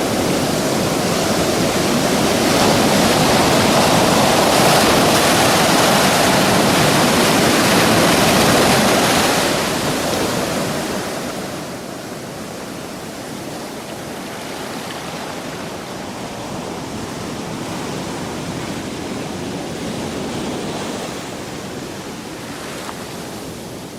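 Sea surf: waves washing and breaking as a steady rush of noise, louder for the first ten seconds or so, then softer and even.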